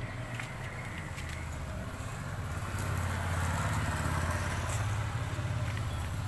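A motorcycle engine running, a steady low pulsing rumble that grows louder about three seconds in and then eases off.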